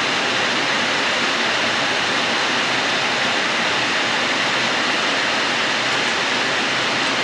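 A steady, even rushing noise of falling water.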